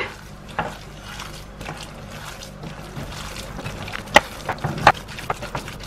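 A hand mixing ground chicken with egg and breadcrumbs in a glass bowl: soft wet squishing, with a few sharp clicks of fingers against the glass, the loudest about four seconds in.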